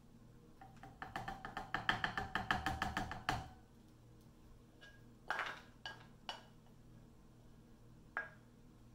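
A metal utensil knocking rapidly against a frying pan, about eight quick ringing taps a second for roughly two seconds, as cooked food is knocked out of the pan into a bowl. A few single knocks follow later.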